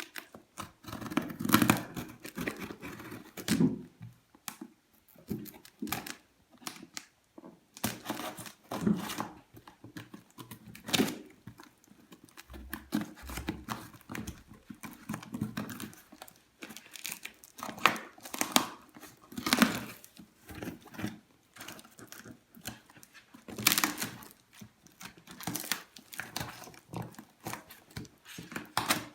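A cardboard parcel being opened by hand: packing tape ripped off in repeated tears, with cardboard flaps and wrapping crinkling and rustling in between.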